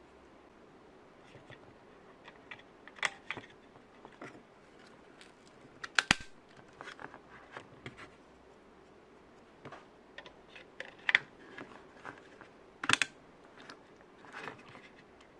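Irregular clicks and taps of small computer hardware being handled, with a few sharper clacks among lighter ones.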